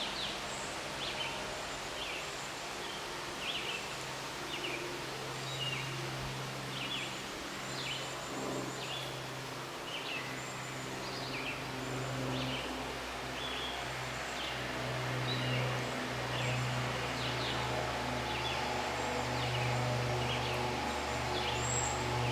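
Outdoor ambience of short, high bird chirps repeated about once a second, over a low hum that comes and goes and grows stronger in the second half.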